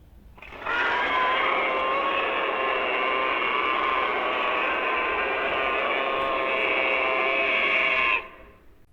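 A dinosaur roar sound effect for Siats: one long, raspy, steady screech with a shrill whistling edge. It starts about a second in, holds for about seven seconds and cuts off suddenly near the end.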